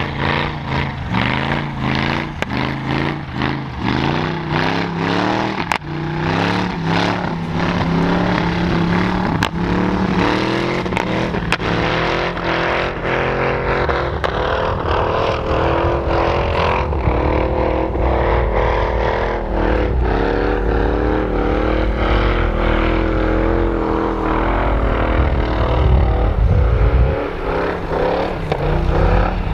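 V8 engine of an off-road 4x4 revving hard in snow, with quick repeated climbs in pitch and choppy cut-outs at first. It is then held at high revs for long stretches with a wavering pitch, dips briefly near the end, then picks up again.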